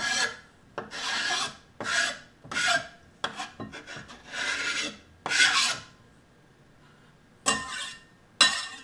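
A utensil scraping in short repeated strokes as chopped hard-boiled egg is pushed over into a bowl: seven scrapes, a pause of about a second and a half, then two more near the end.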